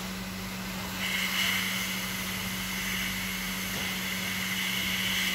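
Hot-air rework station blowing a steady hiss onto a circuit board, heating the solder to fit a replacement diode. It comes in about a second in and cuts off suddenly at the end.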